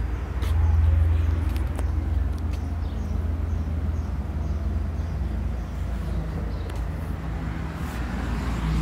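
Outdoor street background heard while walking: a steady low rumble, with scattered faint ticks and clicks.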